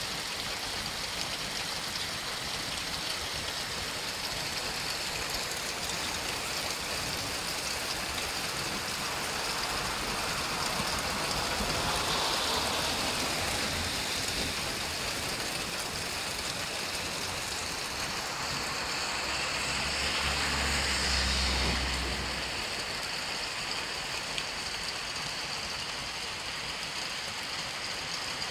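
Heavy thunderstorm rain pouring steadily onto a flooded street, a continuous hiss. It swells louder twice, about halfway through and again a few seconds later; the second swell carries a low rumble that breaks off shortly after.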